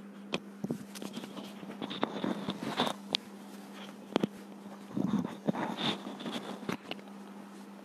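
Handling noise: scattered clicks, taps and rustling as something is moved about close to the microphone, over a steady low hum.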